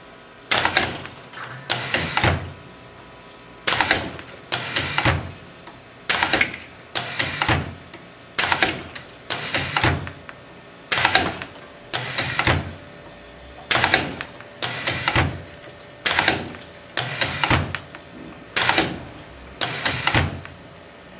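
Hustler hook winding machine cycling as it pulls 15 AWG copper wire around a core, one turn per cycle: a regular series of sharp mechanical strokes, mostly two about a second apart every two and a half seconds, each a rush of noise that dies away quickly.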